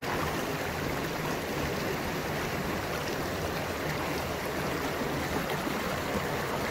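Shallow stream flowing over rocks: a steady, even rush of water.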